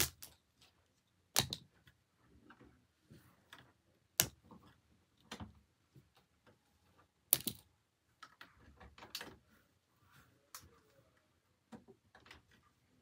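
Objects being handled: a series of sharp clicks and knocks, the loudest four spaced a couple of seconds apart, with softer taps and rustling between.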